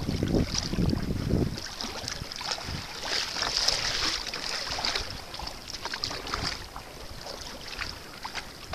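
Water lapping and splashing around a small paddle craft on choppy bay water. Wind buffets the microphone for the first second and a half.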